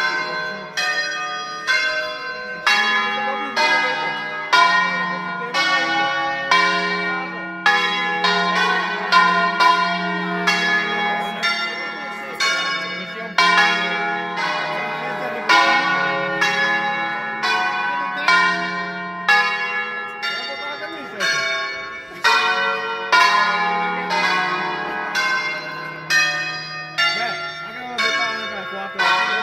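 A ring of ten bronze church bells tuned in D-flat, hung and rung in the Veronese system, playing a concert: single strokes follow one another about twice a second, each bell ringing on under the next, with a low hum from the larger bells sustained beneath.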